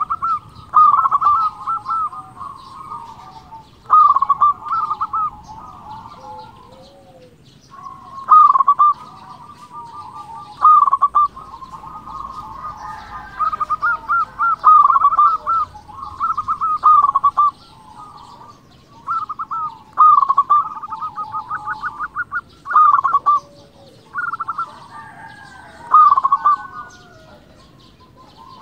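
Zebra dove (perkutut) singing, phrase after phrase of rapid staccato cooing notes with short pauses between.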